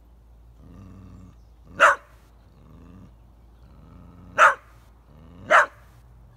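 A dog growling low in rumbles, each broken off by a sharp bark: one bark about two seconds in and two more close together near the end. The growls and barks are play, urging a goat to chase.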